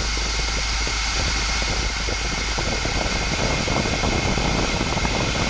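Steady rush of air, a loud hiss over a rough low rumble, as the Pilatus PC-12's cabin safety valve opens and vents the pressurized cabin at about 6.25 psi differential, the sign that the valve passes its opening test.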